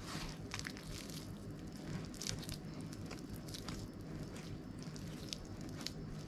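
Hands squishing and kneading sausage mince into a sticky flour-and-water dough on a wooden chopping board, in irregular short squishes and pats over a steady low hum.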